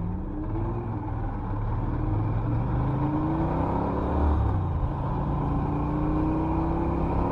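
Norton Commando 961's parallel-twin engine pulling under acceleration, its note climbing steadily. The pitch drops once about halfway through and then climbs again.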